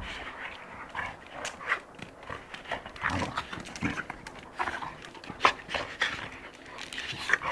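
Two young dogs play-fighting, giving a quick, irregular run of short dog sounds mixed with scuffling.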